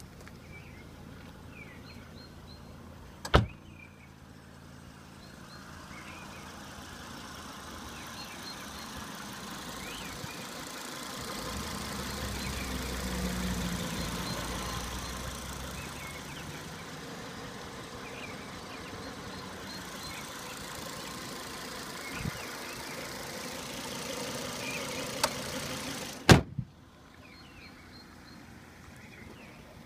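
Car door shut with a sharp knock a few seconds in, then the Volvo S60 2.3 T5's turbocharged five-cylinder petrol engine idling under the open bonnet, louder for a while in the middle, and the bonnet slammed shut with a loud bang near the end.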